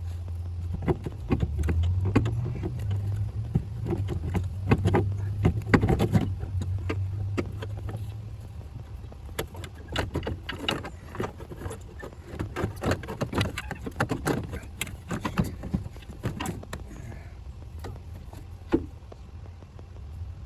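Irregular metallic clunks, knocks and rattles of a brake booster being worked loose and pulled out of a 2004 Ford Expedition's engine bay, over a steady low hum that fades out about halfway through.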